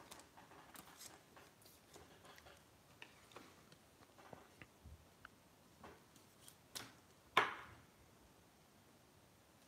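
Trading cards being handled and shuffled by hand: faint scattered clicks and rustles of card stock, with one louder brief scrape about seven seconds in.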